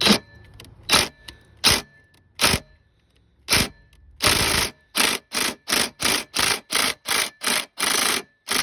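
Small Craftsman cordless drill pulsed in short harsh bursts against a stubborn bolt. The bursts come a second or so apart at first, then quicker, about three a second, near the end. The weak drill is struggling to break the bolt loose.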